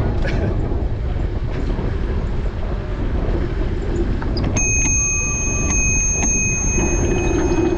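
Steady low rumble of a bicycle rolling over pavement, with wind on the microphone. A little past halfway a bicycle bell rings about four times in quick succession, its ring lingering.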